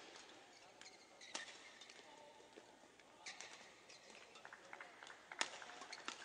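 Faint badminton-court ambience: scattered short squeaks of players' shoes on the court mat, with one sharp click about five seconds in.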